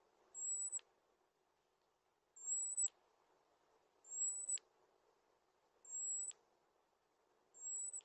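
A small bird's high, thin call: a steady whistled note about half a second long, each ending in a short click, repeated five times at even intervals of just under two seconds.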